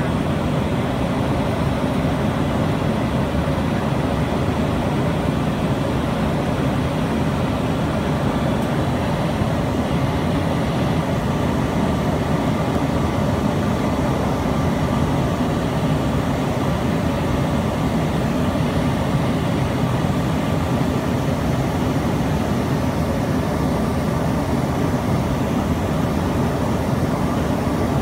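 Inside the cabin of an Embraer ERJ-145 climbing after takeoff: the steady, unbroken noise of its two rear-mounted Rolls-Royce AE 3007 turbofans at climb power, deep and even, with faint steady whining tones above it.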